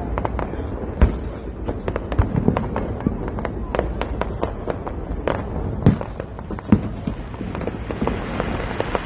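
Fireworks going off in a dense, continuous crackle of bangs, with a few louder booms about a second in and around six and seven seconds.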